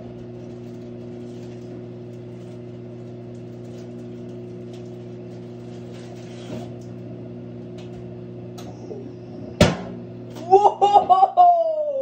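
Sunbeam microwave oven running with a steady electrical hum, then about nine and a half seconds in a balloon inside it bursts with one sharp bang.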